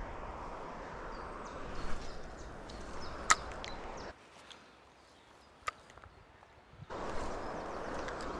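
Steady rush of flowing river water, with a few sharp clicks and faint bird chirps. The rush drops away suddenly about four seconds in and comes back about three seconds later.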